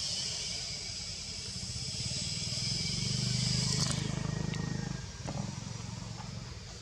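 Shrill insect chorus in a steady high drone that stops abruptly about four seconds in, over a low motor hum that swells in the middle. A few light snaps and rustles of leaves come after.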